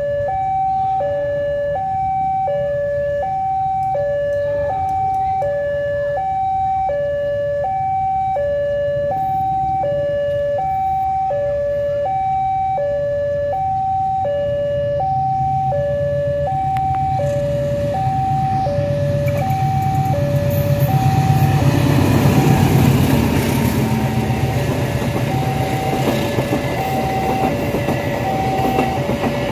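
Railway level-crossing warning alarm sounding a steady two-tone ding-dong, a higher and a lower tone alternating about once a second. A diesel-hauled passenger train approaches under it: its rumble grows from about halfway, is loudest about three-quarters of the way in, and the coaches roll past the crossing near the end.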